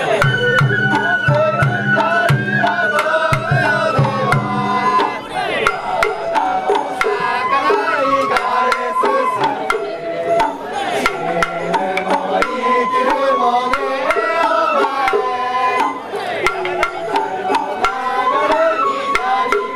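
Festival float music (hayashi): a bamboo flute plays a continuous, sliding melody over steady drum strikes.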